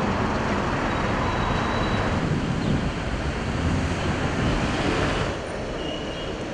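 Street traffic noise from buses and cars, with wind buffeting the microphone. The noise gets quieter about five seconds in.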